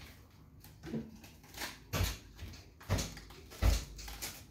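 A series of dull knocks and thumps, about five in four seconds, the last three the heaviest: handling noise.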